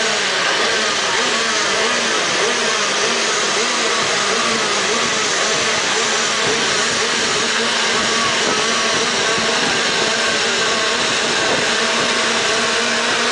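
A grid of 125 cc two-stroke kart engines running together, their overlapping pitches wavering up and down as the throttles are blipped while the karts wait for the start.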